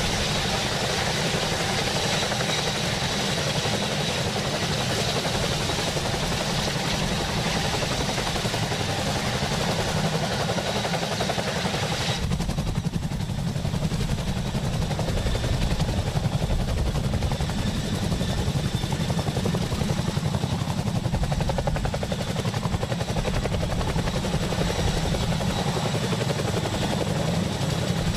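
Boeing CH-47 Chinook tandem-rotor helicopter running, with a fast, heavy rotor beat and a steady high whine from its twin Honeywell T55 turboshaft engines. About twelve seconds in the higher sounds drop away abruptly, leaving mostly the low rotor beat.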